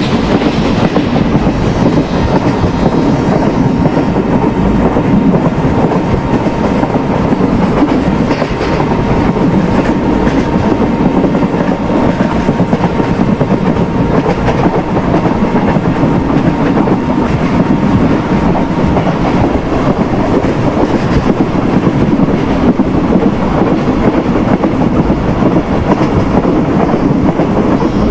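Express passenger train running at speed on open track: a steady, loud rumble of wheels on rails, with the clickety-clack of rail joints.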